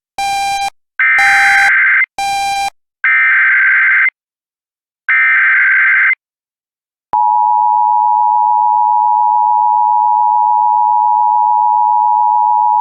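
Emergency Alert System alert tones: short buzzy beeps alternating with three one-second bursts of the SAME digital header data, then, after a second's pause about seven seconds in, the steady two-tone EAS attention signal, loud and unbroken.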